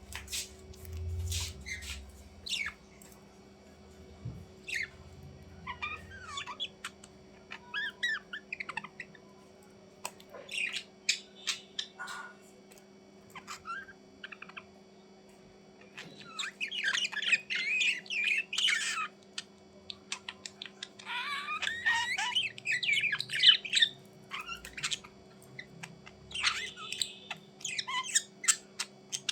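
Pet bird calling: scattered short chirps and squawks, with two longer bursts of rapid chatter past the middle. A steady low hum runs underneath.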